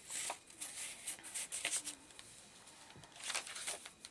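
Paper rustling as the pages and pockets of a handmade paper journal are handled and turned: a run of short, crisp rustles, a brief lull in the middle, then more rustling.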